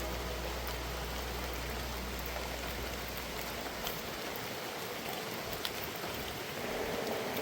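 Steady rush of falling water, an even hiss with a few scattered drip-like ticks.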